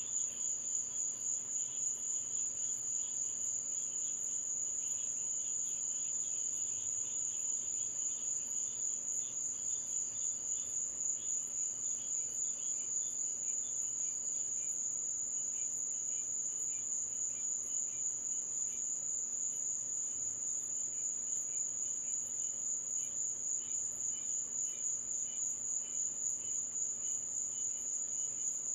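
Night insects, crickets or similar, singing in chorus: a steady high-pitched trill that pulses quickly and evenly, with a second, lower chirping insect over it.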